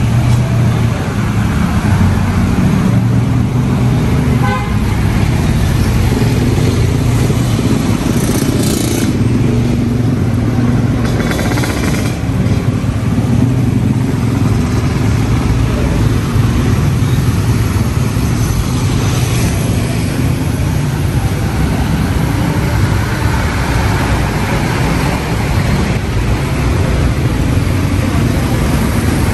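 Steady roadside traffic noise: the engines of passing cars and motorcycles.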